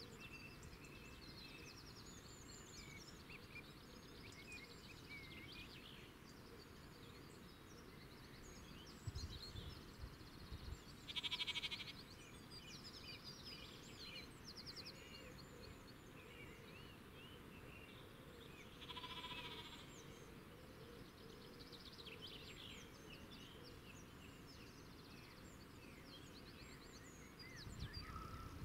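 Quiet outdoor ambience of small birds chirping and trilling throughout. Two louder, drawn-out animal calls come about 11 and 19 seconds in, with brief low rumbles near 9 seconds and at the end.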